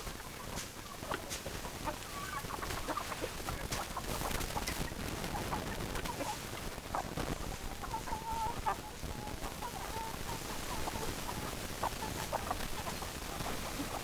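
Chickens clucking: short, scattered calls, with one longer drawn-out call about eight seconds in.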